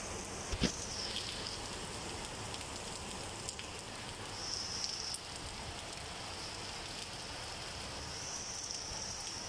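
Steady rain falling on wet paving and garden, with a single sharp knock about half a second in.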